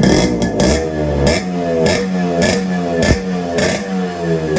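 Yamaha RX100's two-stroke single-cylinder engine blipped repeatedly through its chrome silencer. The quick throttle blips come a little under a second apart, and the revs fall back between each one.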